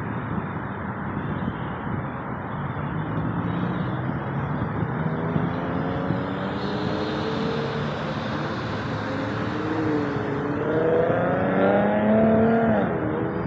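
Road traffic: motor vehicle engines passing over a steady roar, their engine tones gliding up and down, with one engine rising in pitch and getting louder between about eleven and thirteen seconds in.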